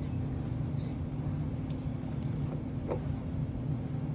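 Steady low mechanical hum, even in level throughout.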